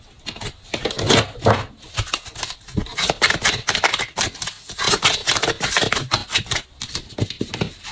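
Oracle cards being shuffled and handled by hand: a quick, irregular run of sharp clicks and slaps.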